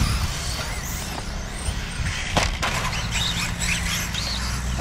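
Electric 1/10-scale RC off-road buggies racing on a dirt track: their motors whine, rising and falling in pitch as the cars speed up and slow down. A sharp knock comes about two and a half seconds in, over a steady low rumble.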